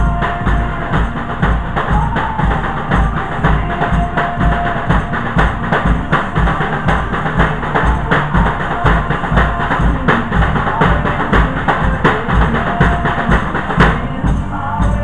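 Upbeat music with a drum kit keeping a steady, driving beat.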